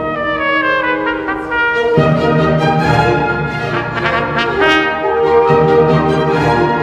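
Brass music led by trumpet: a quick falling run of notes, then held chords.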